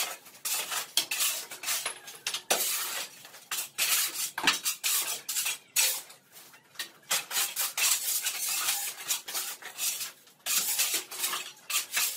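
Shovel blades scraping across a dusty concrete floor and dry brush and debris being shovelled into a metal wheelbarrow, in quick irregular strokes with clinks of metal.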